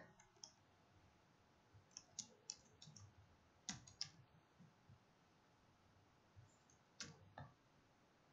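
Faint, scattered keystroke clicks of a computer keyboard, typed in a few short runs with pauses between, and a couple of single clicks near the end.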